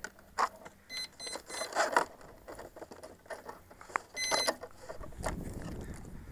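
Brushless motor's speed controller sounding its short startup beeps through the motor once the flight battery is plugged in: a few high beeps about a second in and another group about four seconds in. Clicks and knocks from handling the battery plug and pressing the 3D-printed pod's hatch shut come between the beeps. A low rumble starts near the end.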